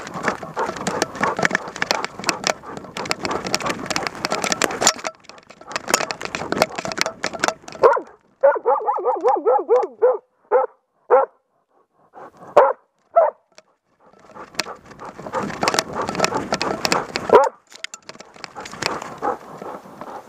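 A moose-hunting dog barking at a moose it has found, heard very close from a camera on the dog itself. It gives fast runs of barks, then a string of higher, quicker yelping barks and a few single barks about halfway through, then another fast run.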